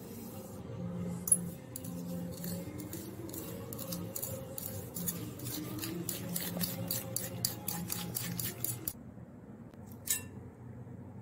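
Metal fork beating eggs and sugar in a glass bowl, clicking rapidly against the glass at about four strokes a second, with a sharp clink about a second in; the beating stops about nine seconds in, and one more clink follows near the end.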